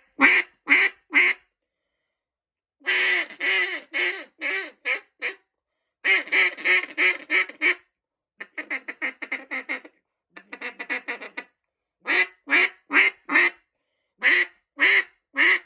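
Homemade single-reed J-frame duck call with a cork body, blown in a hen-quack routine: a run of four quacks, a longer series that trails off in loudness, stretches of fast chatter, then two more runs of four quacks.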